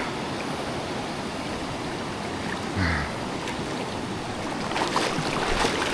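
Shallow river running fast over rapids, a steady rush of water, with sharper splashing from about five seconds in as someone wades through it.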